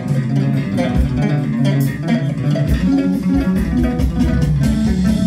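Guitar-and-bass music played back through a pair of Lansche Audio loudspeakers, the model with plasma tweeters, at a steady, fairly loud level.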